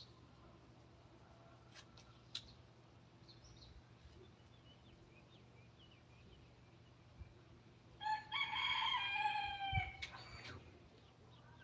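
A rooster crowing once, about eight seconds in, a drawn-out call lasting a couple of seconds. Faint bird chirps come before it.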